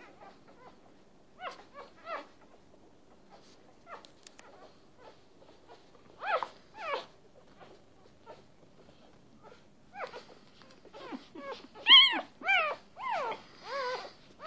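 Three-day-old puppies squeaking and whimpering while they nurse: short cries, each rising and falling in pitch, scattered at first and coming thicker and louder over the last few seconds.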